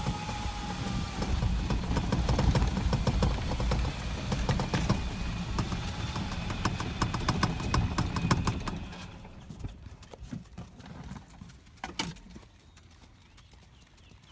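Hoofbeats of a keg-shod bay filly moving in the single-foot, an even four-beat ambling gait, on a dirt track. For the first nine seconds or so they sound over the low rumble of a vehicle following close behind. Then the rumble drops away and the hoofbeats go fainter.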